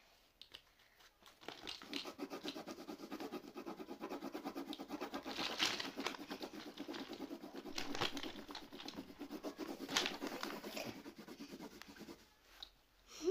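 Coloured pencil scribbling on a sheet of paper as a child colours in, a rapid back-and-forth scratching with a few sharper taps of the lead. It starts about a second in and stops shortly before the end.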